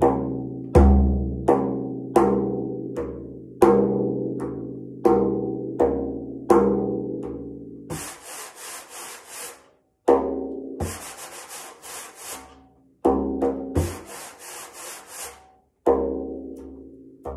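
Cooperman frame drum played by hand: a steady run of low, ringing strokes, each left to ring out. From about halfway, three stretches of quick rustling, pulsing strokes at about five or six a second, with a few more ringing strokes between them.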